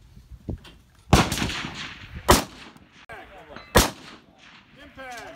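Three loud rifle shots about a second and a half apart, the first followed by a long rolling echo.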